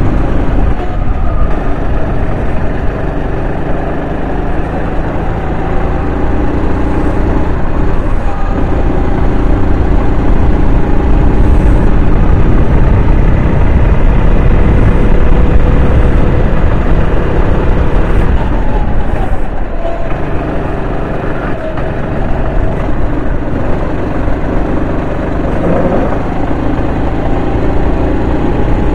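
Racing kart's engine running at speed on track, its pitch falling and rising again several times as the revs drop into corners and build back up on the straights.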